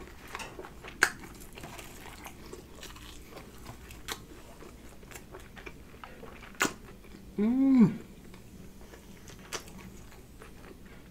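Close-up chewing of crunchy fried chicken and fries, with scattered small wet clicks and crunches. About three quarters of the way through comes a short hummed "mm" of enjoyment, the loudest sound here.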